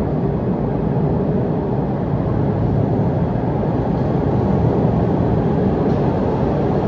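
Alstom Series 8 metro train approaching through the tunnel toward the platform, a steady low rumble that slowly grows louder.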